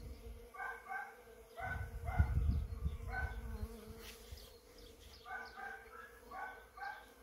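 Honeybees buzzing steadily as they work hazel catkins. A dog barks about a dozen times, mostly in pairs, and wind rumbles on the microphone during the first three seconds.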